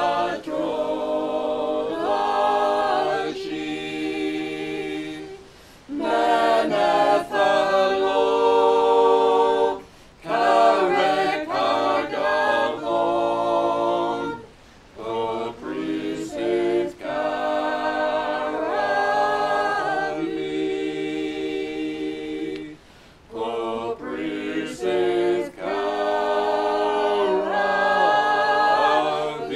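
Unaccompanied choir singing in harmony, several voices together in phrases of a few seconds with short pauses between them.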